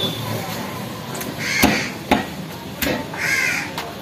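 Crows cawing, one harsh call about one and a half seconds in and another near the end. Around the middle come three sharp knocks of a cleaver chopping chicken on a wooden block.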